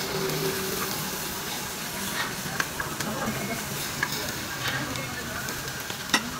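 Pork belly sizzling on a tabletop barbecue grill, with a few sharp clicks of metal utensils.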